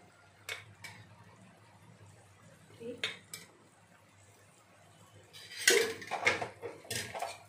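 Steel ladle clinking against a metal pan and oil bowl as spoonfuls of oil are added. There are a few single sharp clinks in the first half, then a quicker run of louder clinks and knocks near the end.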